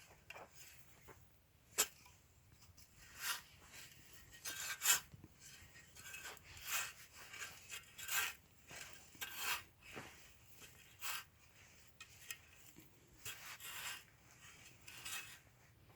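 A digging tool scraping and cutting into garden soil again and again, in short, irregular scrapes.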